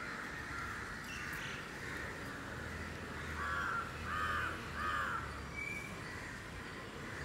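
A crow cawing three times in quick succession, each caw about half a second long, about halfway through.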